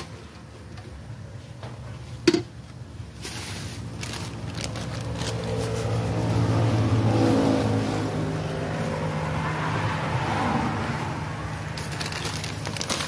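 A motor vehicle engine passing close by, building over a few seconds and then easing off. Near the start, a metal ladle knocks twice on the rim of an aluminium cooking pot.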